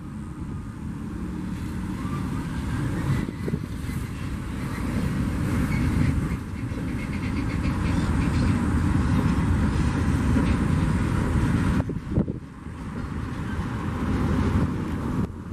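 A freight train of loaded mineral hopper wagons rolling slowly past, its steel wheels giving a steady low rumble on the rails with a few short knocks.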